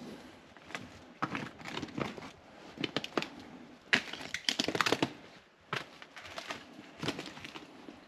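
Footsteps in crampons crunching on snow-covered ice, irregular crunches with a quick run of them about four to five seconds in.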